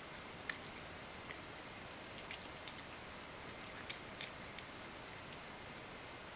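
A ragdoll cat's small wet mouth clicks as it chews and licks its lips, faint over a steady hiss: one sharper click about half a second in, a few more in clusters around two and four seconds.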